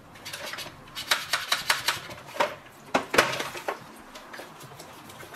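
Hard plastic clicks and knocks as a washing-machine detergent drawer is handled and scrubbed with a small brush in a plastic basin, with the loudest knock about three seconds in.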